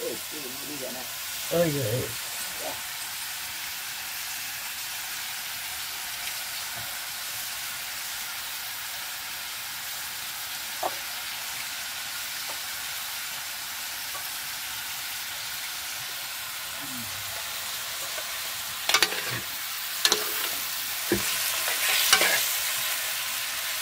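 Meat frying in a cast-iron pot, a steady sizzle. Near the end a metal spoon scrapes and knocks against the pot several times as the meat is stirred.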